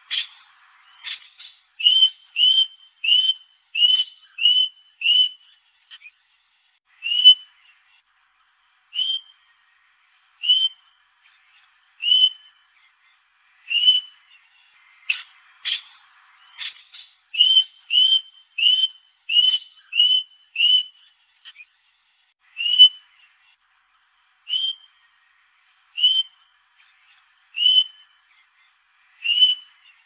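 Australian king parrot giving repeated short, high piping whistles. The notes come in quick runs of about two a second, with slower stretches of single notes about every second and a half.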